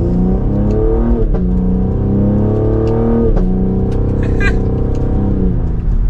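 The Cadillac CT5-V's 3.0-litre twin-turbo V6, heard from inside the cabin, accelerating from first gear through the 10-speed automatic. The engine note climbs in pitch, drops at each upshift (about a second in, again around three seconds in, and once more near the end), with light exhaust pops on the upshifts.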